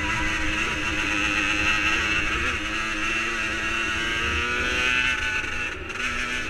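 50cc two-stroke engines running at high revs, their pitch climbing slowly about midway and dipping briefly near the end.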